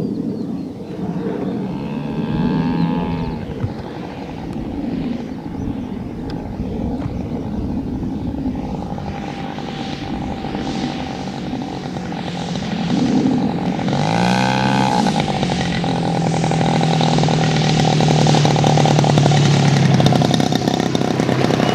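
Petrol engine of a 4-metre radio-controlled Cessna scale model coming in to land. The engine note rises and falls with the throttle, sweeps sharply about fourteen seconds in, then holds steady for several seconds as the plane reaches the runway.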